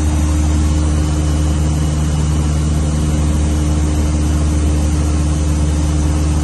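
Cessna 152's four-cylinder Lycoming O-235 piston engine and propeller running in flight, a steady, unchanging drone heard inside the cockpit.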